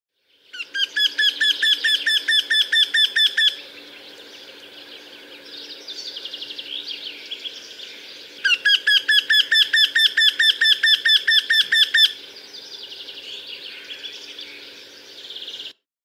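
Eurasian wryneck singing: two series of about twenty quick, evenly repeated ringing notes, about seven a second. Each series lasts about three seconds, and the second begins about five seconds after the first ends.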